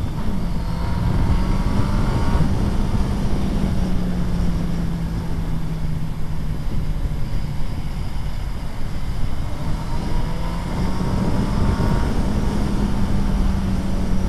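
Suzuki B-King's 1340 cc inline-four engine running at highway speed under a heavy rush of wind. Its pitch rises under acceleration twice, for about two seconds early in the clip and again around ten to twelve seconds in.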